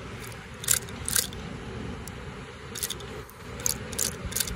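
Steady rush of fast river water below a dam, with half a dozen short, sharp clicks and scrapes close to the microphone from handling the rod and reel.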